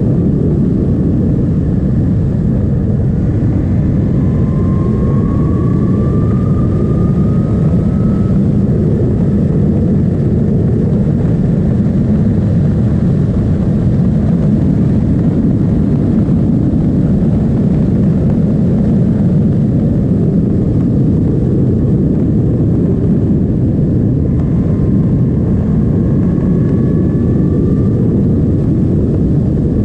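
Suzuki GSX-S 1000's inline-four engine running as the bike is ridden, under a steady heavy rush of wind noise. The engine's whine rises twice, about four seconds in and again near the end, as the rider accelerates.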